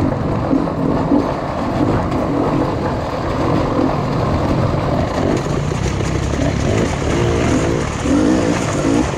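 Dirt bike engine revving up and down repeatedly under changing throttle while riding off-road.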